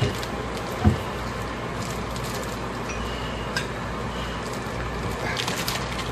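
Steady kitchen background hiss from cooking, with a single knock about a second in and a few light clicks and rattles near the end.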